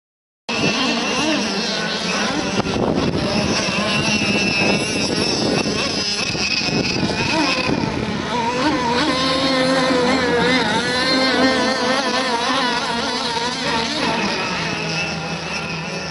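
Several petrol-engined radio-controlled racing boats running flat out, their two-stroke engines giving a loud, continuous buzz whose pitch wavers and shifts as the boats turn and pass. The sound cuts in suddenly about half a second in.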